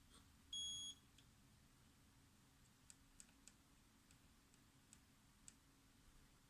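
Multimeter in diode (voltage drop) test mode giving one short, high beep about half a second in, followed by a few faint clicks of the probe tips touching the circuit board.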